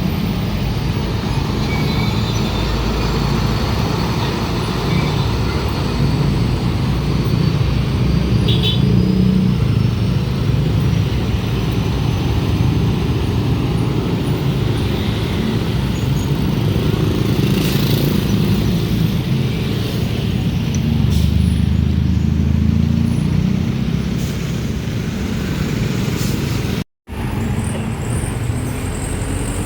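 Heavy diesel trucks and other road traffic running at a level crossing, a steady low engine rumble throughout. It cuts out for a moment near the end.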